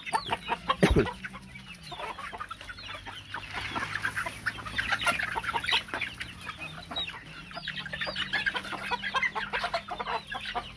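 A flock of young half-blood Asil chickens clucking and calling over one another as they crowd in to feed. There is a single thump about a second in.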